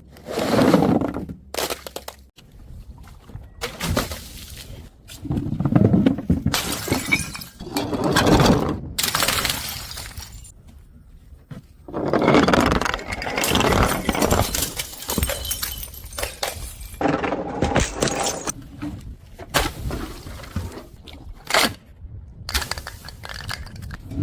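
Glass bottles smashing on stairs, one crash after another, each followed by a short spill of breaking glass that trails off.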